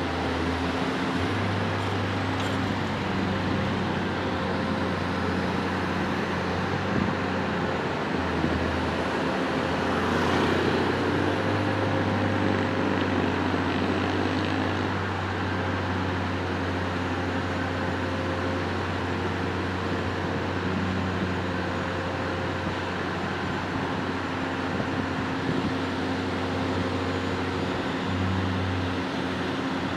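Heavy diesel engine of a Bauer GB 50 diaphragm-wall grab rig running steadily with a low hum, swelling briefly about ten seconds in.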